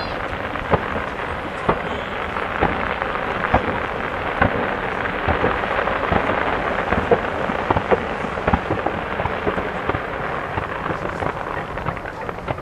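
Fireworks crackling: a dense, continuous crackle of many small pops, with scattered louder bangs.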